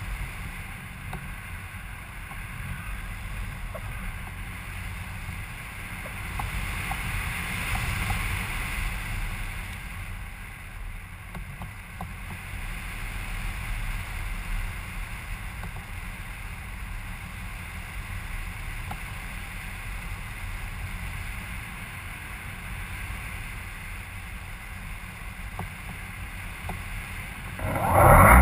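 Wind rushing over the microphone of a camera in flight, a steady low rumble with no engine running. Right at the end a motor starts up loudly, its pitch rising.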